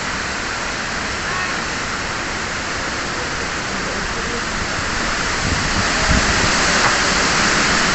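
Heavy rain pouring down in a steady hiss, growing a little louder in the second half, with a few low rumbles just after the middle.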